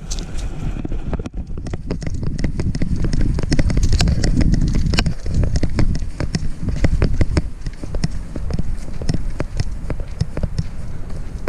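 Dog trotting with a camera strapped to its harness: rapid, uneven clicks and rattles, several a second, over a constant low rumble of jostling.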